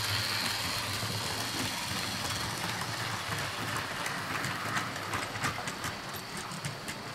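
Model electric trains running on the layout track: a steady motor hum with wheels rolling over the rails, and a run of quick irregular clicks in the second half as the wagons pass.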